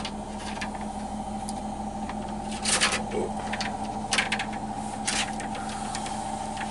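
Scattered clicks and light knocks of a shower door's aluminium track and glass panels being handled and fitted together, loudest a little under three seconds in, over a steady hum.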